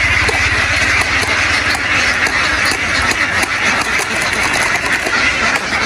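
A large flock of domestic ducks quacking all at once, a dense, unbroken chatter. A low engine throb runs under it for the first couple of seconds, then fades.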